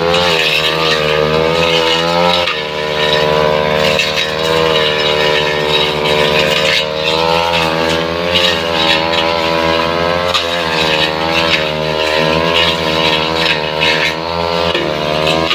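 Two-stroke brush cutter engine running at high revs. Its pitch wavers and sags briefly a few times, as if under load, then picks up again.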